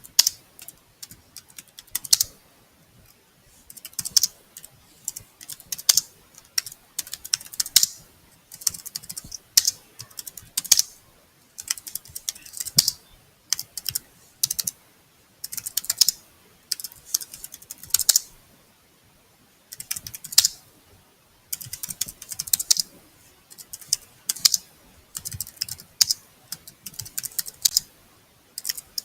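Typing on a computer keyboard: quick runs of keystrokes in bursts of a second or two, broken by short pauses.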